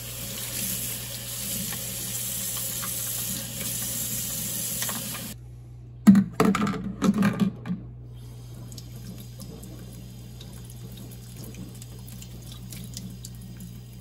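Kitchen faucet water running onto a plastic part in a stainless steel sink, cutting off suddenly about five seconds in. A few loud knocks follow as the parts are handled, then faint drips and small ticks.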